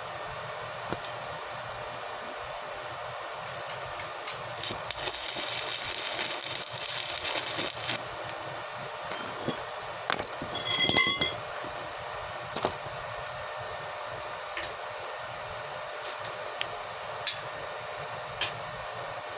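About three seconds of hissing crackle from a stick-welding arc on steel, then a ringing clink of metal struck on metal, with scattered light taps over a steady fan hum.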